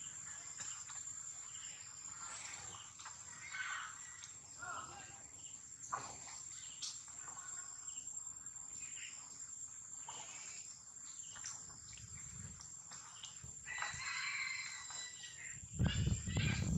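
A steady, high-pitched insect drone with scattered short chirps and squeaks over it. Near the end a louder burst of voice-like calls breaks in.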